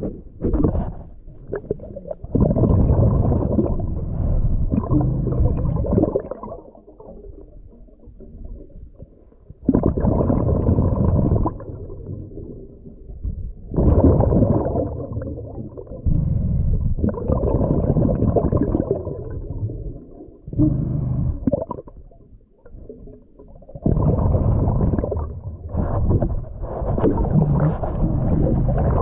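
A diver breathing through a regulator, heard underwater: bubbling bursts of exhaled air lasting from one to several seconds, coming every few seconds with quieter gaps between.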